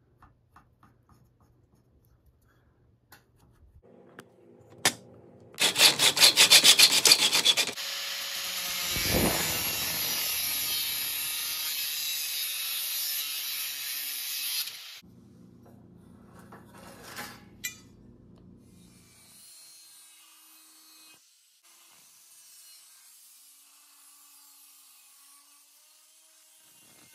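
Handheld angle grinder with a cutoff disc cutting a metal sliding-door track to length. It starts with a rough, chattering bite a few seconds in, then settles into a loud steady cut of about seven seconds. After that the motor runs on with a lower hum for a few seconds before the sound drops to a faint hiss.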